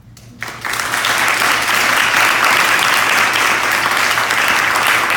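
Audience applauding: the clapping starts about half a second in, builds within a second and then carries on steadily.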